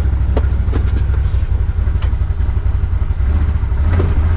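A vehicle's engine running low and steady as it pulls away and drives slowly, its pitch shifting a couple of times, with a few knocks in the first second.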